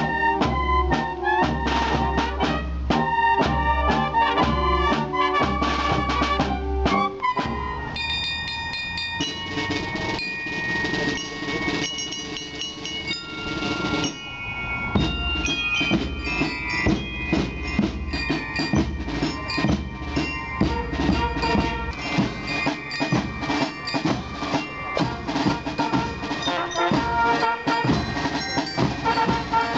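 School bands playing in edited segments: a brass band with sousaphone, trombones and saxophones for the first several seconds, then a marching band whose bell lyres ring in long high notes, and from about halfway on snare drums and bass drums keep a steady, dense march beat under the melody.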